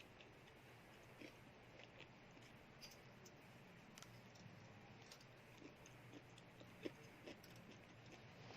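Faint mouth sounds of chewing a cheese stick: scattered small wet clicks, with one sharper click about seven seconds in, over a faint steady low hum.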